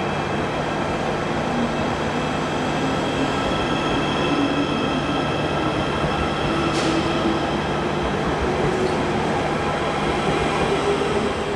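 Diesel multiple unit pulling out along the platform, its engine note rising as it gathers speed, with wheels running on the rails. A single sharp click sounds about seven seconds in.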